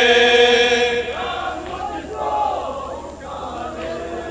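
Men's voices reciting a noha, a Shia lament. The lead reciter's long held sung note ends about a second in, and quieter voices of the reciting group and crowd follow.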